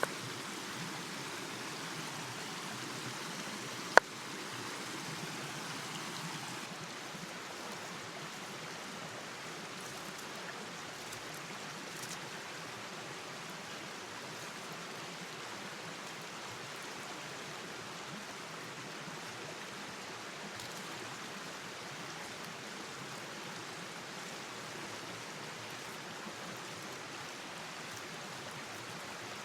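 Steady rushing of a flowing stream, with a single sharp click about four seconds in.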